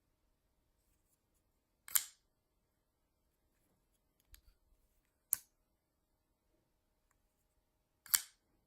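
Ganzo FH11 liner-lock flipper knife being flipped open and shut: three sharp metallic clicks about three seconds apart, with faint small ticks from handling shortly before the second.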